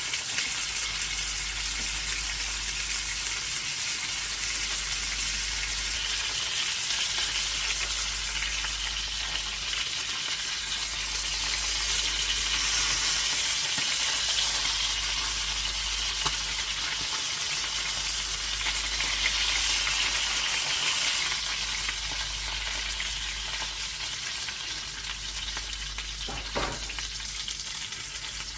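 Chicken pieces frying in a little oil in a pan: a steady sizzle, with an occasional faint tick.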